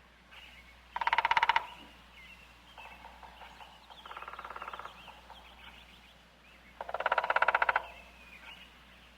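Woodpecker drumming: two loud, rapid drum rolls on wood, each under a second long, about a second in and about seven seconds in, with a fainter roll between them. Scattered high bird chirps sound in the gaps.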